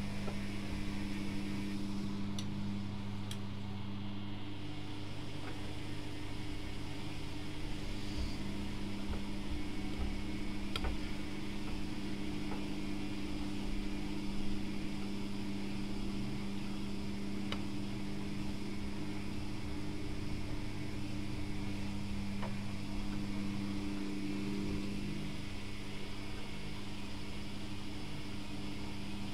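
Privileg Classic 30612 front-loading washing machine in its main wash: the drum motor hums steadily while the drum turns the sudsy load, with water sloshing and a few faint ticks.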